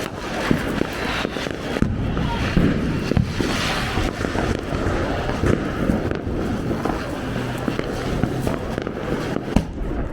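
Firecrackers and fireworks going off all around: a continuous din of many pops and bangs at varying distances.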